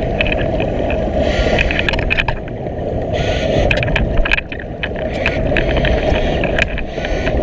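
Steady churning rumble of water heard underwater as the scooter moves, with scattered clicks and three short bursts of bubbling hiss.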